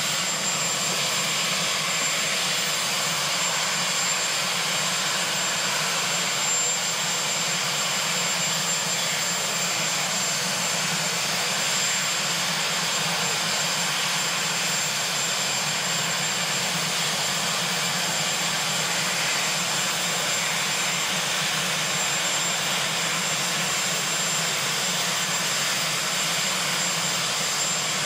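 Marine One, a Sikorsky VH-3D Sea King helicopter, running on the ground with its turbine engines going: a constant rushing noise with a thin high tone held steady over it.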